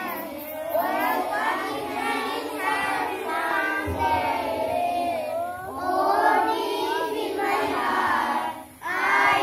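A group of children singing a song together in unison, with a short break between lines near the end.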